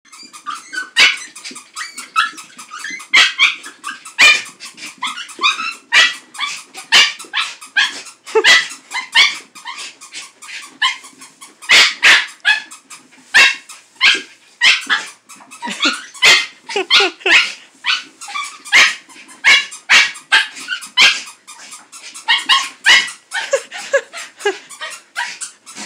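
Border Terrier barking and yipping in short, sharp, high-pitched barks, two or three a second and irregular, worked up by a squeaky toy.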